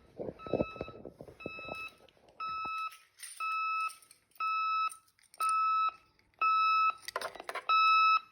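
HKC intruder alarm sounding its entry-delay warning beep: one steady high beep about once a second, growing longer and louder, warning that the system must be unset before the timer runs out. Clattering and footsteps come under the quieter beeps in the first couple of seconds.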